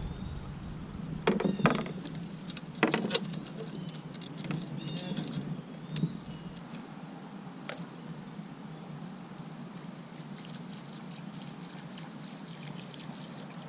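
A few sharp knocks and taps against a kayak, two close pairs in the first three seconds and single ones later, over light water patter.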